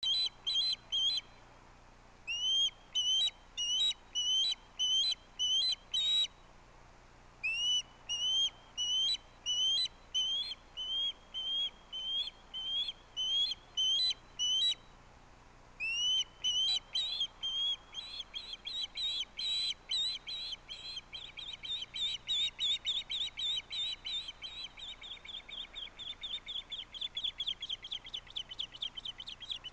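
An osprey calling from the nest: loud, short, rising whistled chirps, about two a second in runs broken by short pauses. About halfway through they speed up into a rapid, excited string of calls, the begging that comes before another osprey brings in a fish.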